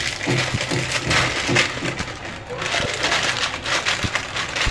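Plastic instant-noodle wrapper crinkling and rustling as it is cut and torn open by hand, an irregular crackle.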